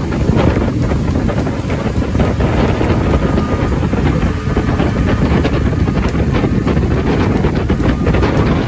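Steady wind buffeting the microphone aboard a moving motorboat, over the rush of the hull and engine under way.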